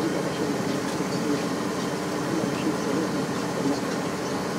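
John Deere 6900 tractor's diesel engine running steadily under load, pulling a mounted plough through the soil.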